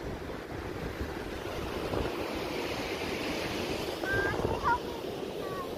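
Ocean surf washing on a beach, a steady rush that swells about two to four seconds in, with wind rumbling on the microphone.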